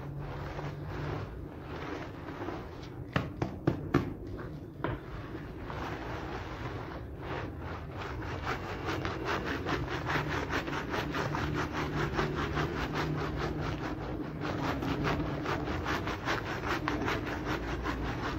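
Wet scrubbing of a soapy, foam-covered shag rug on a concrete floor, with a hand brush and gloved hands. A few sharp knocks come about three seconds in; from about halfway the scrubbing settles into quick, even strokes.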